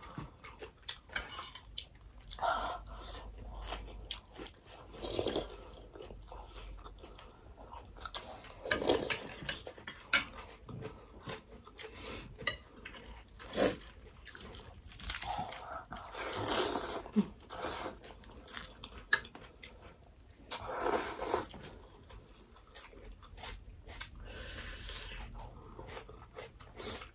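Close-miked eating: chewing and crunching with irregular slurps of noodle soup and clicks of spoons and forks against the bowls.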